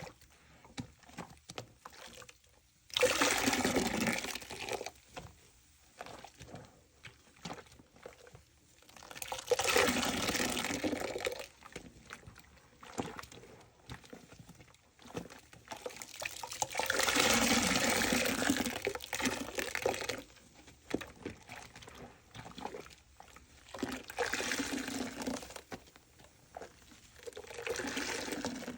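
Soap-soaked sponge squeezed again and again, each squeeze sending out a gush of soapy water lasting a second or more. There are five squeezes, with faint wet crackling between them.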